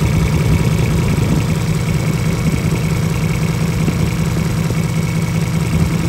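Komatsu PC05-6 mini excavator's three-cylinder Komatsu diesel engine idling steadily, heard up close.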